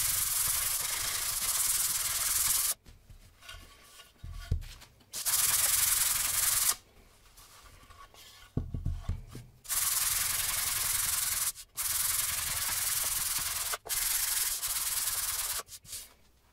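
Sandpaper on a wooden block being rubbed by hand along the grain of a wooden cutting board: long, even scratchy strokes in several stretches, broken by short pauses with a couple of soft knocks as the block is set down or shifted.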